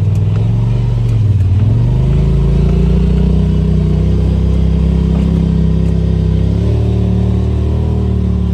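Side-by-side UTV engine running on the trail. Its pitch dips and then rises about two seconds in as the throttle changes, then holds fairly steady.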